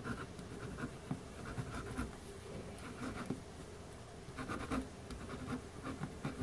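Pen writing on paper: short scratchy strokes in irregular bursts with brief pauses, as an entry is written into a spiral-bound guest book.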